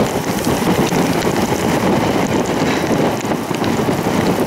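Loud rush of storm wind on the microphone, with rain, coming up sharply at the start and then holding steady.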